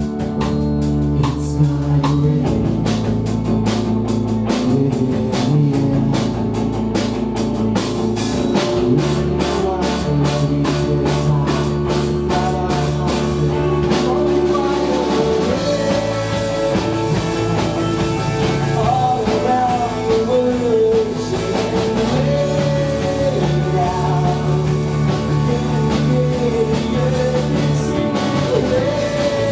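Live worship band playing a rock-style song: acoustic and electric guitars, keyboard and drum kit. A voice sings the melody over it from about halfway in.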